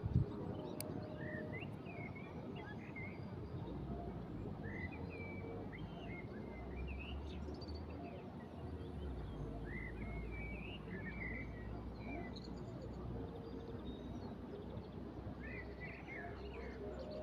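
Small songbirds chirping and twittering in short, scattered calls over a steady low rush of wind and water. A low rumble swells for a few seconds midway.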